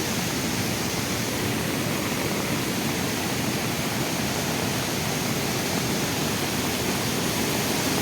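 The Beas River in flash flood, a fast, high flow of floodwater rushing in a steady, unbroken noise.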